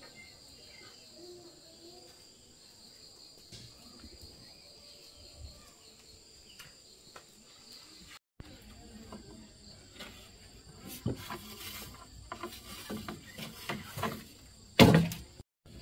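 Insects calling steadily in two high, unbroken tones. Over them, in the second half, come a series of sharp knocks and clatters, the loudest about a second before the end.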